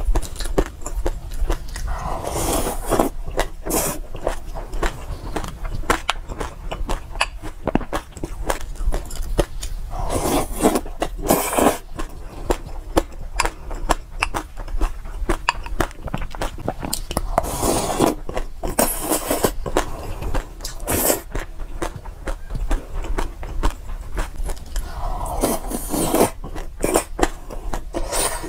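Close-miked chewing of a mouthful of mixed seeds: a dense run of small crunches and clicks, swelling into louder patches about every eight seconds.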